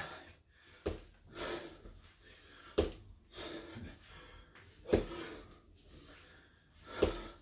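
Trainers thudding onto a wooden floor four times, about every two seconds, as a man steps back into reverse lunges, with heavy breathing between the steps.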